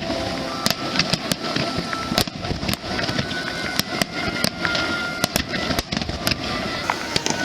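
Fireworks going off: a rapid, irregular run of sharp bangs and crackles over a steady rumble, with a few thin whistling tones from rising shells.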